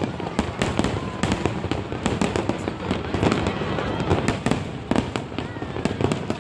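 Fireworks display: a dense, continuous run of sharp bangs and crackling bursts, several a second.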